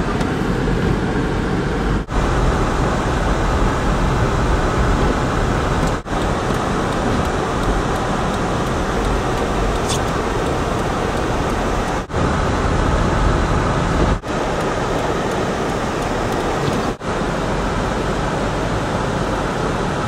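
Steady rush of a moving car's road and tyre noise, broken by about five brief dips where the sound drops out for a moment.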